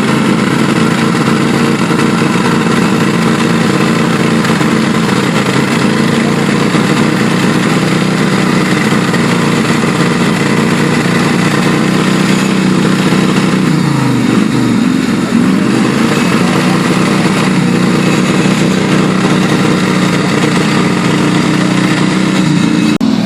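Off-road 4x4 vehicle's engine running at steady revs; about two-thirds through, the revs drop sharply and then climb again.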